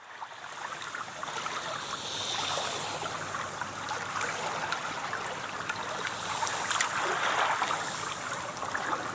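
Ocean waves washing and splashing: a steady watery hiss with small splashes, fading in over about the first two seconds.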